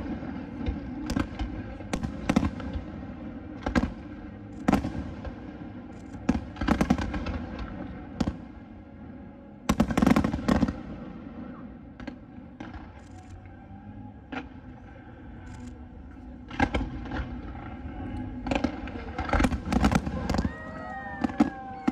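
Aerial fireworks bursting in an irregular series of sharp bangs and crackles, with a loud cluster about ten seconds in, a quieter stretch after it, and a quick run of bangs near the end.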